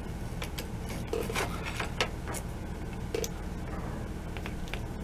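Bayonet being fitted onto a Gewehr 98 rifle's bayonet lug: a series of short metal clicks and scrapes as the handle slides on, over a steady low hum.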